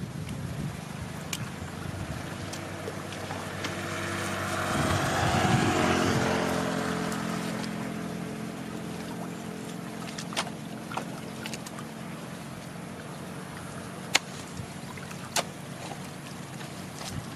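A motor running steadily, swelling louder for a few seconds around the middle and then fading, as if passing by. A few sharp clicks come in the second half, the loudest a little after the fourteenth second.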